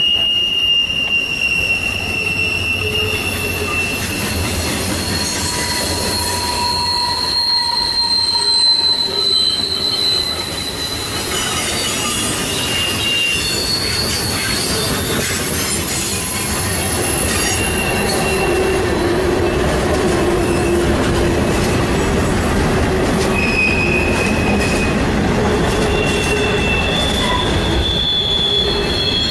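Mixed freight train rolling past close by: the steady rumble of steel wheels on the rails, with wheel squeal coming and going in several high-pitched tones that shift as the cars go by.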